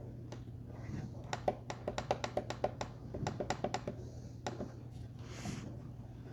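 Quick run of small plastic clicks, about six a second for a few seconds, with single clicks before and after: buttons on a Westclox digital FM radio alarm clock being pressed. A steady low hum runs underneath.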